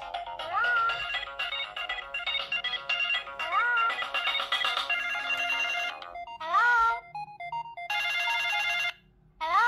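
Samsung SGH clamshell mobile phone playing its polyphonic ringtone for an incoming call: an electronic melody with a rising swoop that comes back about every three seconds.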